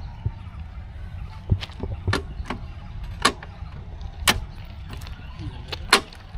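Sharp metallic clinks and knocks, about seven spread over several seconds, two of them close together near the end, from hands working the steel locking gear of a railway switch between the rails. The points are not setting properly. A steady low rumble runs underneath.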